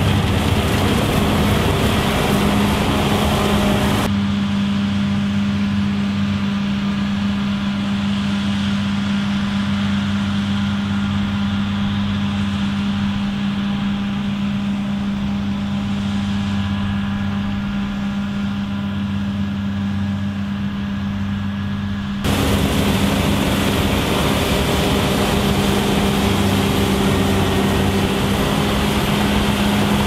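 Claas Lexion 740 combine harvester running under load while harvesting, a steady engine and threshing drone with a strong constant low hum. The sound turns abruptly duller about four seconds in and brightens again suddenly about twenty-two seconds in.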